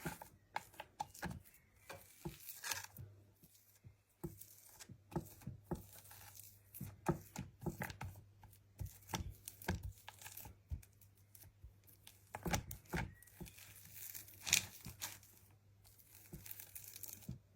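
Irregular crinkling and rustling of a thin sheet being handled and torn, with many short sharp crackles and small knocks.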